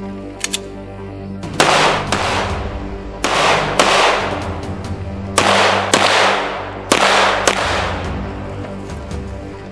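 Gunshots over background music: four loud shots spaced about a second and a half apart, each with a long echoing tail and a sharper crack about half a second after it.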